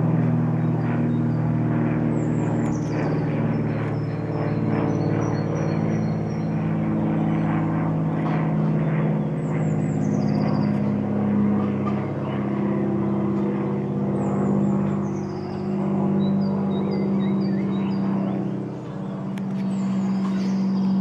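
Small single-engine propeller plane's piston engine giving a steady drone as it passes overhead, its pitch shifting slightly. A bird sings short, high, falling phrases now and then.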